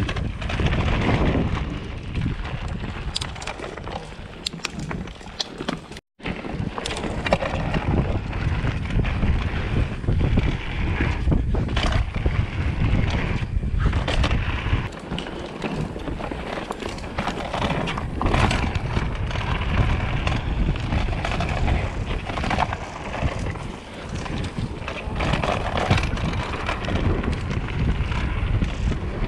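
Mountain bike riding fast down dirt singletrack: wind rushing over the camera microphone, tyres rolling on dirt and the bike rattling and clattering over bumps. The sound cuts out briefly about six seconds in.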